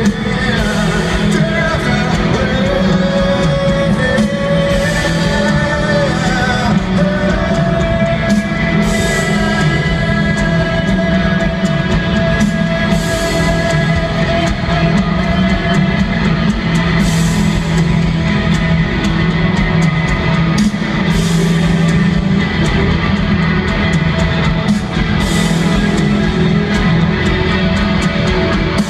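Live rock band playing in an arena, heard from among the crowd: electric guitars with singing over long held notes.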